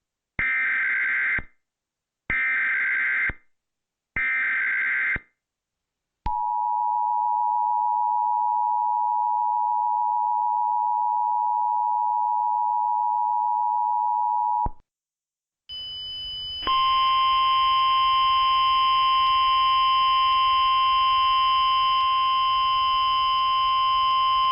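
Emergency Alert System tornado warning. It opens with three one-second screeching bursts of SAME digital header data. Then comes the steady two-tone EAS attention signal, held for about eight seconds. After a brief gap a second steady single alert tone follows, with hum and hiss beneath it.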